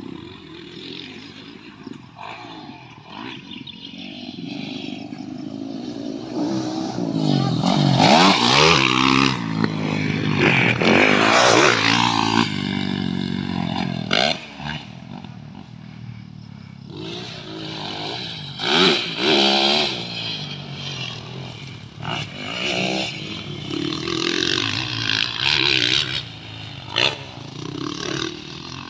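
Motocross dirt bike engines revving hard and dropping back, the pitch rising and falling as the riders open and close the throttle. Loudest about eight to twelve seconds in, with shorter bursts of throttle later.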